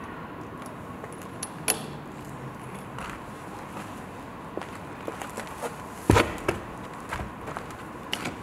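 Footsteps crunching and knocking over loose debris and broken wooden boards: irregular sharp knocks and crunches, the loudest one about six seconds in.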